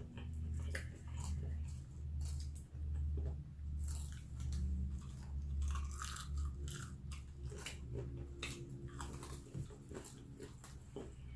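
Close-miked chewing and crunching of crispy fried chicken, with repeated crisp crunches and wet mouth sounds. A low steady hum runs underneath.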